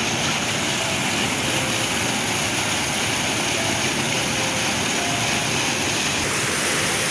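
A river in flood: muddy floodwater rushing and churning over and around boulders, a loud, steady noise of rushing water with no breaks.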